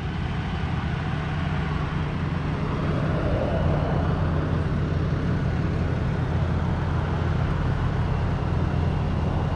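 Steady low hum of an idling vehicle engine, unchanging in pitch, over a haze of outdoor background noise.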